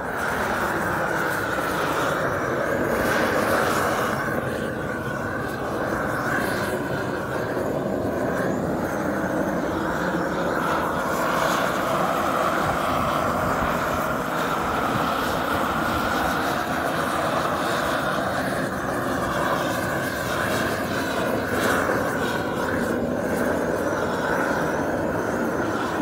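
Gas blowtorch flame burning steadily as it scorches the surface of wooden boards to char them.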